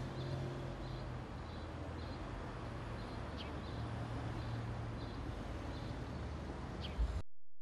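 Hall room tone after speech: a low steady electrical hum under a faint even background noise, with a few faint, brief high ticks scattered through it. It cuts off abruptly near the end.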